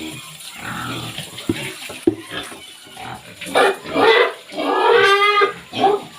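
Pigs grunting, then louder squeals in the second half, with one long squeal about five seconds in. A couple of sharp knocks come around the second and a half to two second mark.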